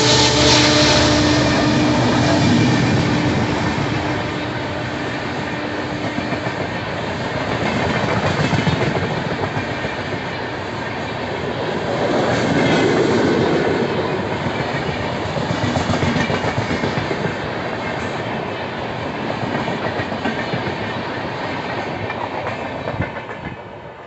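An express train's passenger coaches passing close at speed: a continuous rush with wheels clattering over the rail joints. A pitched drone from the receding EMD WDP-4D diesel locomotive fades out over the first few seconds.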